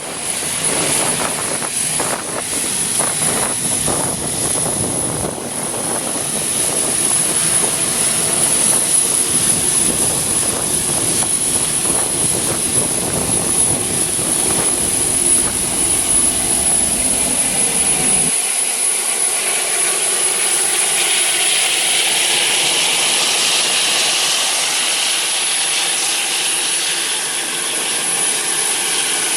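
Pratt & Whitney JT8D turbofan engines of a McDonnell Douglas DC-9-32 at takeoff power, heard inside the cabin, with a steady high whine. Heavy rumble and a series of thumps come through the airframe at first. About eighteen seconds in the low rumble stops abruptly, leaving engine whine and a rising rush of air noise.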